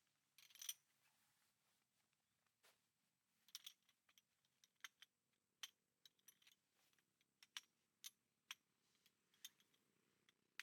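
Faint, scattered sharp clicks and ticks, about a dozen, coming at irregular intervals.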